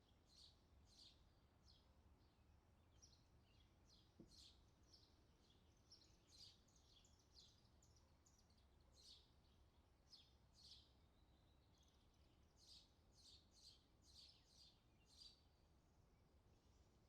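Faint bird chirping: many short, high chirps in quick clusters over a low steady hum, with a single soft knock about four seconds in.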